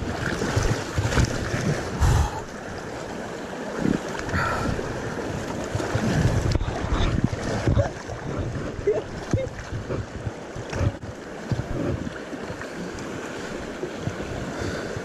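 Fast river rapids rushing and splashing around an inner tube riding through them, with irregular low thumps of water slapping close to the microphone.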